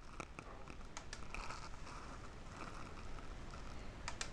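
Faint room tone with a few short clicks, one about a second in and a close pair near the end: computer clicks while moving through presentation slides.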